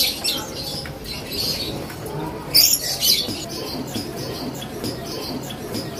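Caged songbirds chirping and calling in scattered short bursts, the loudest flurry of chirps about two and a half seconds in.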